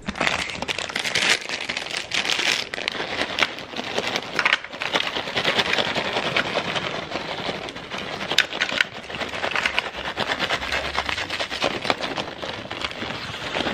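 Crinkling of a foil candy bag as Andes mint crumbles are shaken out of it by hand, a dense run of small crackles and rustles with a couple of brief pauses.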